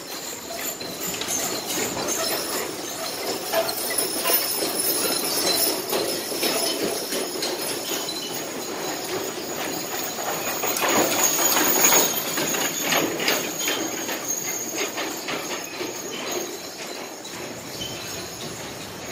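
Draft horse teams pulling wagons past: hoofbeats in the sand, harness chains and metal fittings jingling, and wagon wheels rattling. The sound is loudest about eleven seconds in, as a pair passes close by.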